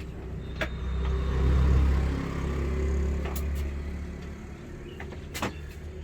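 A motor vehicle passing close by, its low engine rumble swelling about a second in and fading out over the next few seconds. A few sharp clicks come over it, the loudest near the end.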